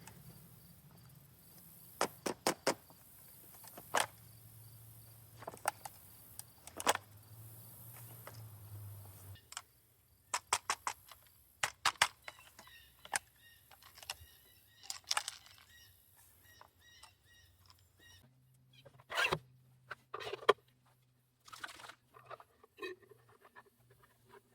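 Sharp knocks and clicks from handling and tapping an M16A1-pattern rifle with a reproduction A1 plastic stock, some coming in quick groups of two or three.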